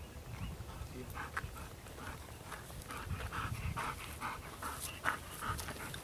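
Dog panting rapidly, about three breaths a second, winded from retrieving, over a low wind rumble on the microphone.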